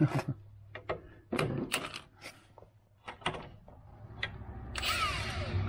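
Scattered clicks and knocks of metal hand tools, sockets and a wrench, being handled during a front CV shaft job. Near the end comes a scraping sound that falls in pitch.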